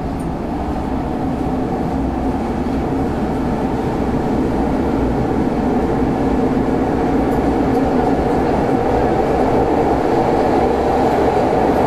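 Athens Metro Line 1 train running, heard from inside the car: a steady rumble of wheels and motors that grows gradually louder.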